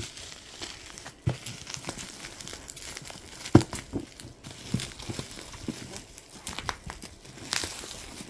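Packaging crinkling and rustling as a boxed set is handled and unpacked, with scattered clicks and taps; a sharp knock stands out about three and a half seconds in.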